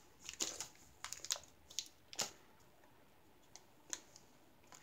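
Faint, scattered clicks and small rustles of hands picking at the knotted cord of a small drawstring pouch to untie it.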